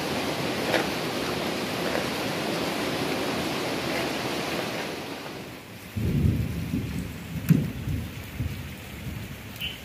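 A steady rushing hiss with a few faint soft clicks while marinated meat is squeezed and mixed by hand in a bowl. About six seconds in it changes to irregular low gusty rumbling of wind on the microphone outdoors beside a burning wood fire.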